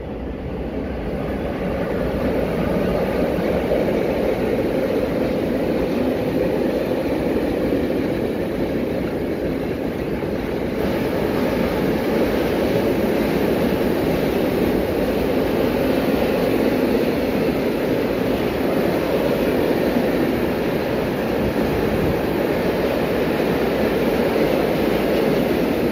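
Freight train's wagons rolling past close by, a steady rumble of wheels on rail that grows louder over the first couple of seconds and then holds.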